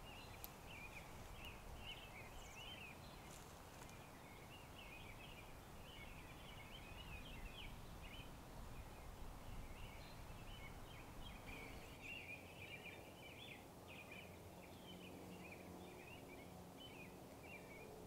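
Faint outdoor ambience of distant small birds chirping and twittering in quick, irregular notes throughout, over a soft background hiss.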